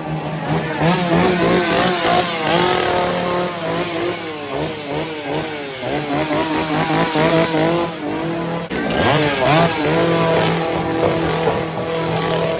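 Two-stroke chainsaw engine revving over and over, its pitch rising and falling with the throttle, with a sharp rev about nine seconds in.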